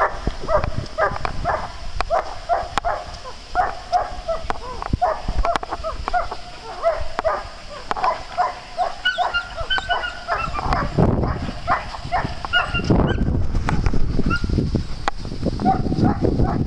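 Several dogs barking and yipping in play, short barks coming several a second and overlapping, with higher-pitched yips joining partway through. A low rumble rises underneath in the second half.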